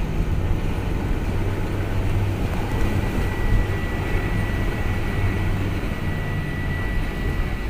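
Vehicle engine and tyre noise heard from inside the cabin while driving on a rough dirt road: a steady low rumble. A thin steady high tone joins about three seconds in.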